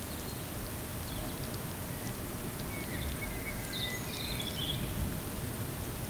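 Wind buffeting the microphone in a steady low rumble, with a few faint high bird chirps about three to five seconds in.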